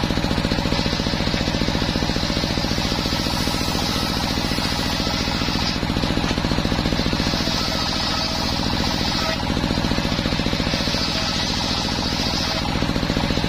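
Homemade engine-driven circular saw bench ripping waru wood. The engine runs steadily with a rapid pulsing beat, and the blade's higher cutting hiss swells three times as the board is pushed through.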